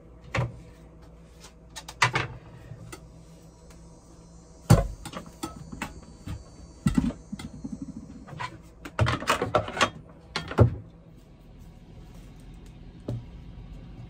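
Kitchen handling in a small van kitchen: cupboard doors opening and closing and things being taken out and set down on the counter, heard as a scattering of knocks and clatters, busiest around the middle and again a little before the end. A faint steady hum runs underneath.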